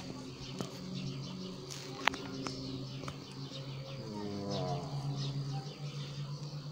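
Distant propeller aerobatic aircraft droning steadily overhead, the engine note climbing in pitch about four seconds in as a smoke-trailing plane dives and pulls through. A couple of sharp clicks come about two seconds in.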